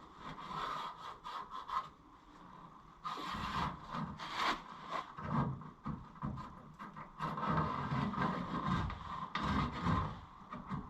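Sheet-metal patch panel scraping and rubbing against a truck's body panel as it is held up and shifted into place for a trial fit. The scraping comes in irregular strokes, with duller knocks from about three seconds in.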